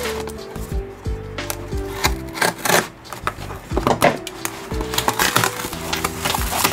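A cardboard shipping box being handled: fingers rub and tap on it, then pull its flaps open in a run of short scraping, crackling strokes. Background music with held notes plays throughout.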